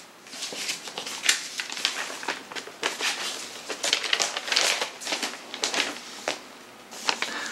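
Rustling and crinkling of a paper inner sleeve as a vinyl LP is handled and slid into it, in quick irregular scrapes.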